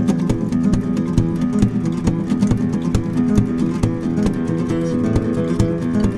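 Background music led by strummed guitar, with a steady beat.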